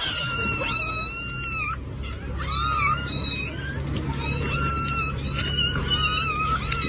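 A cat meowing over and over in high, drawn-out cries, the first and last held for nearly two seconds each, with shorter meows between them.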